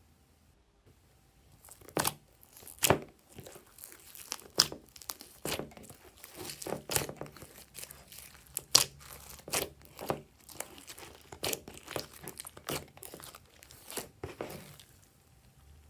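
Glossy slime being mixed and worked by hand, giving a run of irregular sticky crackles and pops that starts after about a second and a half of quiet.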